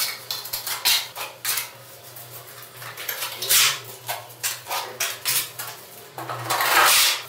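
Steel trowels clinking and scraping: wet plaster scooped from a bucket with a small trowel and spread on a wall with the flat side of a notched trowel. Quick clicks and taps, with two longer scraping strokes in the middle and near the end.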